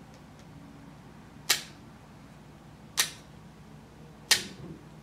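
Three sharp snaps about a second and a half apart: scissor-style dog nail clippers cutting through a dog's toenails.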